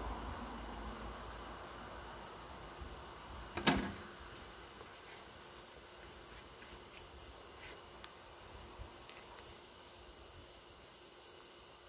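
Crickets chirring in a steady, high, unbroken trill. A single sharp knock sounds a little under four seconds in.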